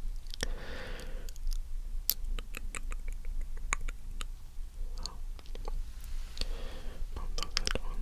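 Close-up wet mouth clicks and lip smacks at a microphone, many soft separate clicks, with two short stretches of wordless whispering about half a second in and near the end.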